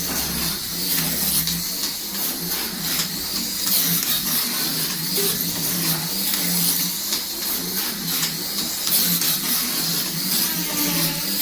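A slot car's small electric motor whining as the car laps the track, with the hiss of its pickup braids and tyres on the rails; the sound swells and fades as it circles.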